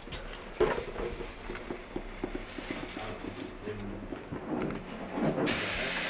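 Footsteps and light knocks of a person climbing stairs, a run of short quick steps after a sharper knock about half a second in. A steady hiss comes up near the end.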